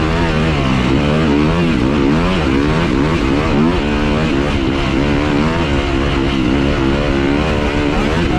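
Yamaha YZ250F four-stroke single-cylinder dirt bike engine under way, its pitch rising and falling again and again as the throttle is opened and rolled off, with wind rushing over the microphone.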